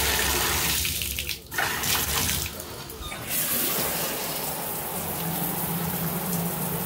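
Water running from a newly installed shower valve, pouring out of a bathtub spout and spraying from a showerhead. The steady rush drops away briefly about a second in and again near three seconds, then carries on with a changed sound.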